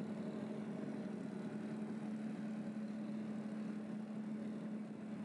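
Honda 5 hp four-stroke outboard motor running steadily at cruising speed, a steady hum with the wash of the boat's wake under it.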